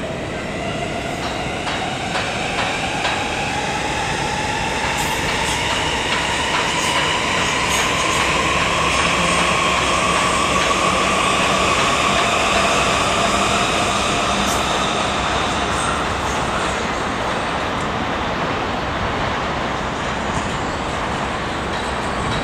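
Electric train running past and accelerating, its traction motors whining in a pitch that rises slowly for about twelve seconds, over a steady rumble of wheels on rails with scattered clicks at the rail joints. The sound swells to a peak about halfway through and then eases off.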